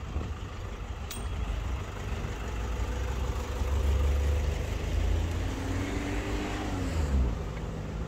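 A motor vehicle driving past on the street: a low engine rumble builds over the first few seconds, and its pitch drops as it goes by near the end.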